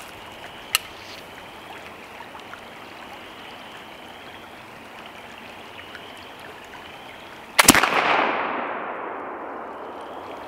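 Kibler Woodsrunner .54-calibre flintlock muzzleloading rifle firing one shot about three-quarters of the way in: a loud sudden boom that dies away slowly in a long echo over about two seconds. A single small click about a second in, with a creek running steadily underneath.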